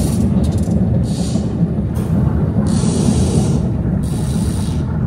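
Stage-show sound effects over a theatre sound system: a loud, steady deep rumble with about five short hissing blasts. One blast comes near the end, as a jet of stage smoke shoots out of the set.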